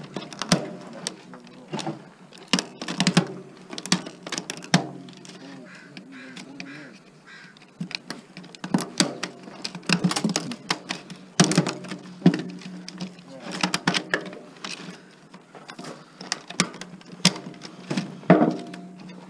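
Irregular clicks, knocks and rattles of metal and plastic parts as a DVD player is taken apart by hand, with screws and pieces coming loose, over a faint steady low hum.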